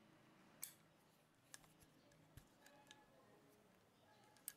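Light, sharp metallic clicks and taps from a steel hand rivet gun and its flat nosepiece wrench being handled while the nosepiece is changed. There are several faint, irregular clicks; the clearest comes just after the start and another just before the end.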